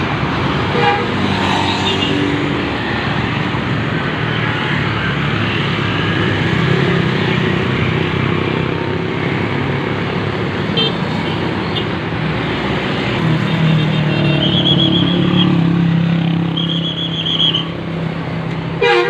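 A large vehicle engine, likely a bus, runs close by with a steady hum and a few clicks. In the last third of the clip a high horn sounds twice, each toot about a second long.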